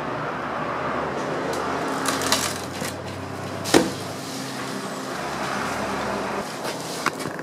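An engine running steadily, with a few sharp knocks about two, four and seven seconds in, the one near four seconds the loudest.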